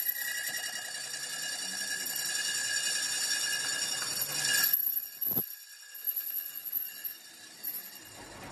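Metal lathe turning an aluminium alloy wheel rim, the cutting tool on the spinning rim giving a steady high-pitched ringing squeal. The ringing stops a little past halfway, leaving quieter running with a single short knock.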